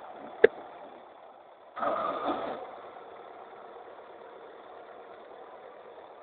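Rakovica 65 tractor's diesel engine running steadily as it pulls a disc harrow across ploughed ground. A single sharp click comes about half a second in, and a brief louder burst comes around two seconds in.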